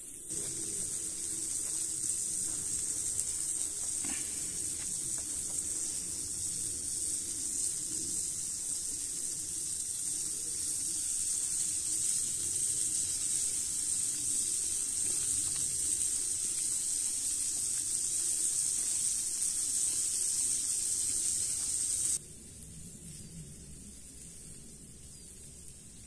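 Food frying on a hot stone over a wood fire: a steady sizzle that cuts off suddenly about 22 seconds in.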